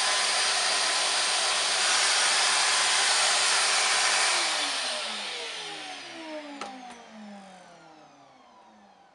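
A Numatic Charles CVC370-2 wet-and-dry vacuum cleaner with a 1000-watt motor runs steadily with a loud rush of suction, then is switched off about four seconds in. The motor winds down over the next few seconds with a falling whine, fading away, and there is a single click partway through the run-down.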